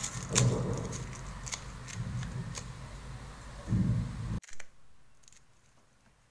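Aluminium foil wrapped around the fingertips crinkling and clicking as the hands move, with a couple of dull knocks about four seconds in; the sound then cuts off to faint room tone.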